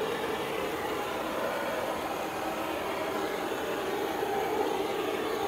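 Handheld blowtorch burning on a low flame with a steady hiss, swept over freshly poured epoxy resin to pop the surface bubbles.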